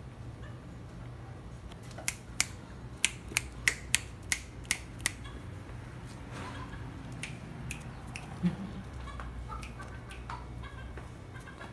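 A quick run of about nine sharp clicks over some three seconds, over a steady low hum.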